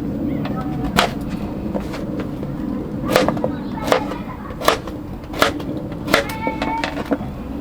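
Knife chopping food on a cutting board: sharp single knocks about every three-quarters of a second over a steady low hum.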